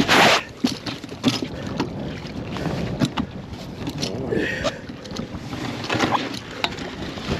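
A splash right at the start, then water sloshing, with scattered sharp clinks and knocks from magnet-fishing gear and recovered metal being handled at the water's edge.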